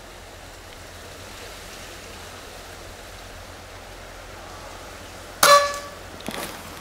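Wind hissing steadily on the microphone. About five and a half seconds in, the Precihole PX120 Minotaur PCP bullpup air rifle fires once: a sharp crack with a brief ringing tone, followed by a couple of faint clicks.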